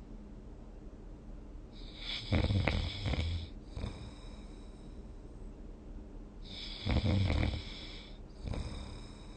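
A sleeping person snoring: two loud snores about four and a half seconds apart, each lasting under two seconds, with a fainter breath near the end.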